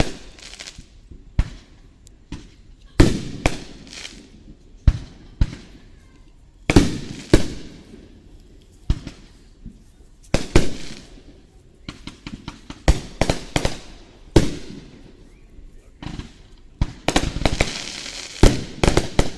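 Aerial fireworks shells bursting in a string of loud bangs, each trailing off in crackle. A rapid cluster of bursts comes near the end.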